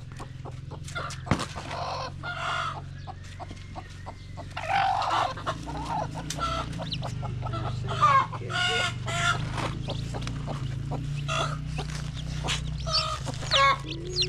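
Chickens clucking, with many short calls and a few louder squawks, over a low steady hum.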